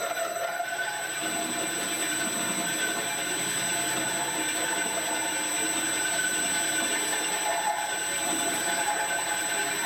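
Wabeco D6000 lathe running with a 19 mm twist drill boring into an aluminium alloy (AlMg3) workpiece clamped on the faceplate, opening up a 7 mm pilot hole. Steady cutting noise with a held high whine.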